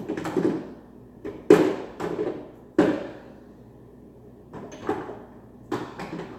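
Kitchen clatter as cupboards and spice jars are handled: a series of separate knocks and clunks, the loudest about one and a half and three seconds in.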